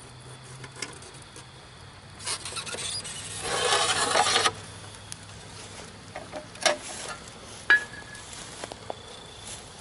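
Molten aluminium sizzling and hissing as it pours into a sandy ant mound, loudest for about two seconds around the middle and cutting off suddenly. Scattered crackles and pops follow.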